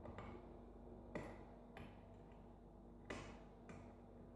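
Faint small metallic clicks of lock picks working the pin stack of a Sargent 5-pin mortise cylinder during single-pin picking. There are about five separate clicks, the sharpest a little over a second in.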